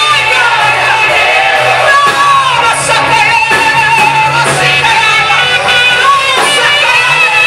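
Swahili gospel worship song: singing over a band accompaniment with a steady bass line, the sung melody wavering with vibrato.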